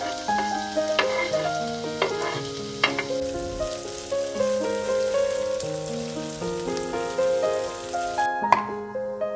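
Sliced onions sizzling in oil in a frying pan while being stirred with a silicone spatula, under background music of stepped keyboard notes. The sizzling cuts off abruptly about eight seconds in, leaving the music.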